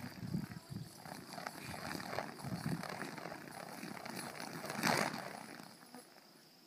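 Kung fu whip chain swung through the air, with one loud whoosh close by about five seconds in, then fading away.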